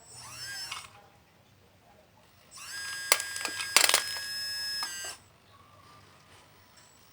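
Electric motor of an RC construction model whining: a short whine that sweeps up and down in pitch, then after a pause a steady whine of about two and a half seconds with a few sharp clicks in the middle.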